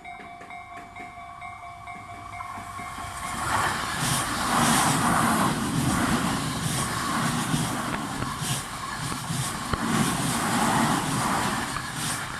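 Japanese railway level crossing alarm of the Tobu type C (Tojo-line style) ringing in a quick repeating electronic ding. About three seconds in, a Tobu Tojo Line train passes over the crossing: a loud rush with sharp knocks of the wheels, while the alarm keeps ringing beneath.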